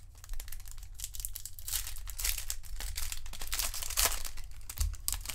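A Topps Chrome Platinum Anniversary trading-card pack wrapper being crinkled and torn open by hand, a run of crackles and rips.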